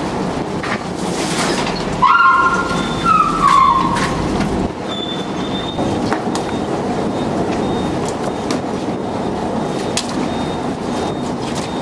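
Steady mechanical rumble and rush with metallic squealing: a loud squeal that falls in pitch about two seconds in, then a thin high whine from about five seconds in, with scattered clicks.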